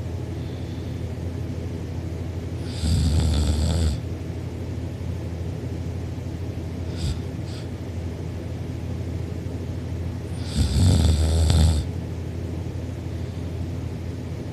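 A person snoring loudly in sleep: two snores, one about three seconds in and one about eleven seconds in, each lasting about a second.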